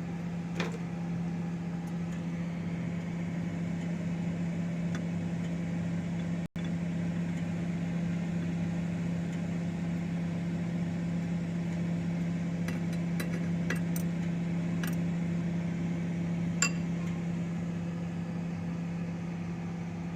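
Microwave oven running with a steady hum, with a few light clicks and ticks in the second half. The sound cuts out for an instant about six seconds in.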